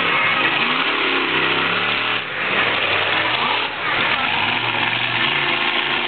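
Monster truck engines revving hard, their pitch rising and falling again and again, with short dips in level about two and four seconds in.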